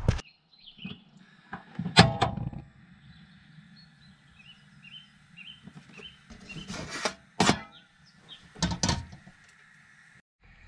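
Sharp metallic clicks and knocks from a camper van's gas hob as it is lit and a small kettle is set on the burner: one loud knock about two seconds in, then a few more in the second half, over a faint steady hum. Faint bird chirps can be heard between them.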